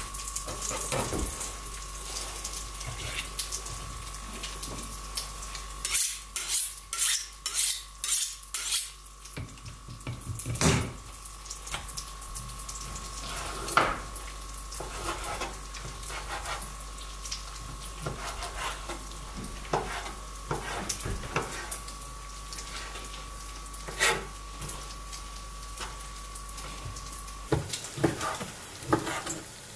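Chef's knife cutting raw chicken breast on a wooden cutting board. There is a quick run of knife knocks on the board about six seconds in, then scattered single knocks and a few more near the end. A faint steady high tone sits underneath until shortly before the end.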